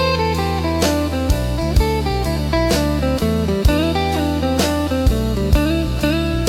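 Slow instrumental blues: an electric guitar plays melodic lines over a steady bass and a drum kit keeping a slow beat, about one hit a second.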